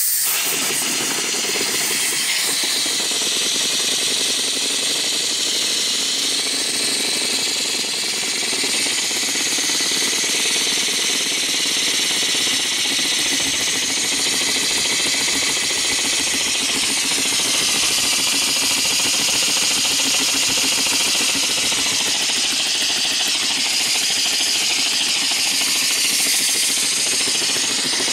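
Small vertical single-cylinder steam engine running on its first steam from a small vertical boiler: a rapid, even mechanical clatter over a steady hiss of steam.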